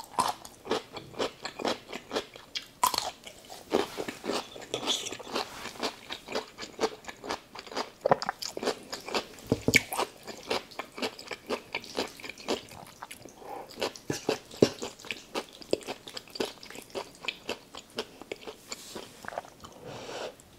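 Close-miked eating: crunchy bites and chewing of a dill pickle, many sharp crunching clicks in quick, irregular succession.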